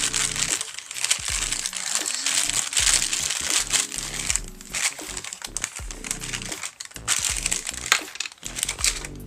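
Packaging crinkling and rustling in irregular bursts as items are handled and pulled out, over background music.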